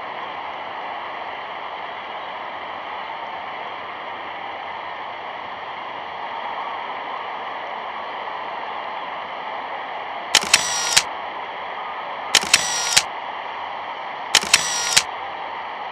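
Camera shutter sound effect going off three times about two seconds apart, each a short click-and-whirr, over a steady hiss.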